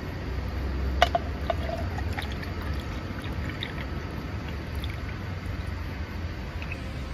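Awamori poured from a glass bottle over ice into a stainless steel tumbler: a sharp clink about a second in, a few short clinks of ice, then the steady sound of the pour.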